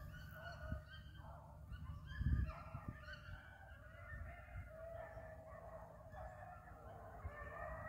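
A pack of beagles baying on a rabbit's trail, faint and distant, with several dogs' drawn-out cries overlapping. A brief low rumble comes about two seconds in.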